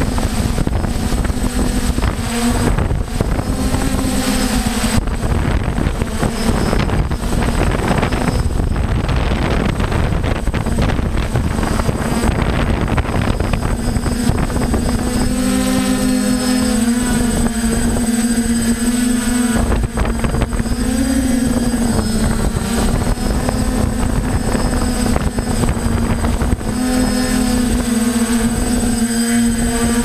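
Electric motors and propellers of a Gaui 540H multirotor, heard from the camera riding on it: a steady hum whose pitch wavers up and down as the motors speed up and slow down, over heavy wind buffeting on the microphone.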